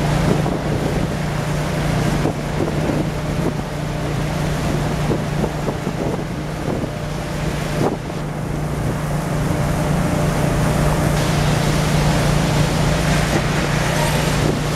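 Steady low engine drone from a moored fishing boat and its deck crane machinery, with scattered knocks and clatter over it in the first half.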